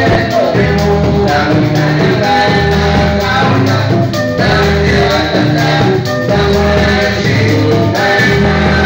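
Live band playing loud amplified music: electric guitar and bass guitar over a steady drum beat.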